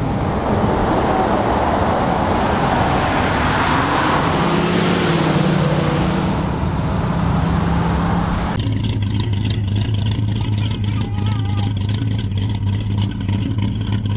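Plymouth Barracuda V8 engine and exhaust: first a loud rushing stretch with the engine note climbing briefly about halfway through, then, after an abrupt change about eight and a half seconds in, the engine idling steadily with even exhaust pulses.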